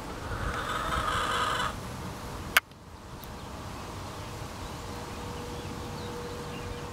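A hen giving one drawn-out, squawking call lasting over a second, followed about a second later by a single sharp click. A faint steady hum comes in near the end.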